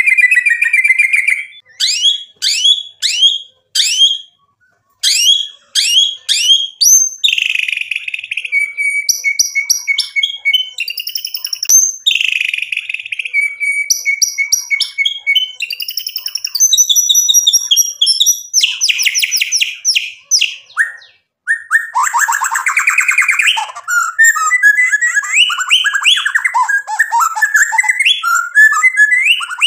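Male white-rumped shama singing loudly in a varied song: runs of quick rising whistles, held whistled notes and trills, with a harsh rattling burst about three-quarters of the way through.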